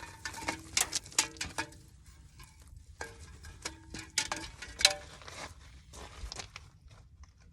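Handling clatter: quick runs of sharp clicks and knocks, some with a short ringing tone, in two bursts with a pause between them.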